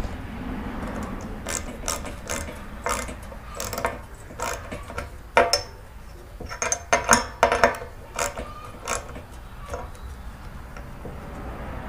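A hand tool tightening a 1/4-inch bolt into a rubber expansion nut: irregular short clicks and rattles in small clusters. The clicks come most thickly in the middle.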